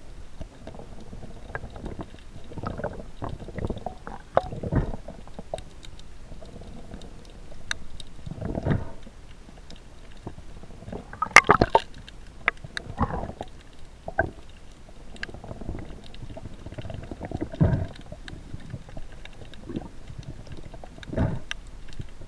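Water sloshing and surging around the camera, muffled as in a waterproof housing, in irregular surges every few seconds with sharp knocks and clicks between them; one knock about halfway through is the loudest.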